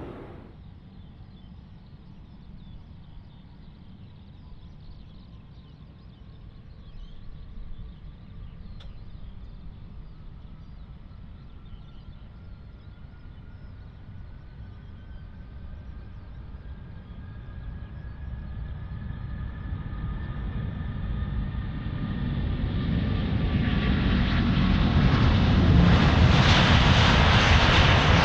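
Jet airliner's engines growing steadily louder, with a rumble and a thin whine that rises slowly in pitch, loudest near the end.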